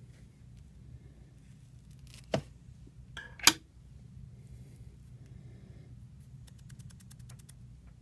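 Materials and tools being handled at a fly-tying bench: two sharp clicks, the second louder, a little after two and three seconds in, then a quick run of faint ticks near the end.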